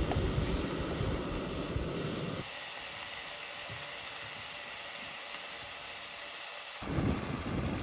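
Bacon frying in a steel skillet: a steady sizzle. Wind rumbles on the microphone over the first couple of seconds and again near the end.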